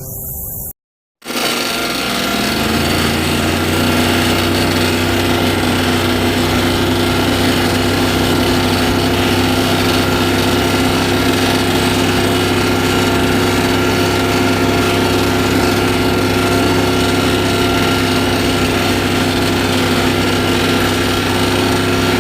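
A small engine running steadily at constant speed. Its pitch rises to a steady note over the first few seconds after it cuts in.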